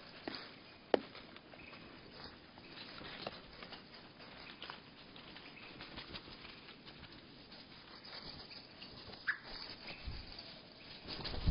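Birds at a seed feeder with the audio slowed to a third of normal speed: scattered taps and clicks from beaks and feet on the feeder, with one sharp click about a second in, a short chirp-like note near nine seconds and low thuds near the end.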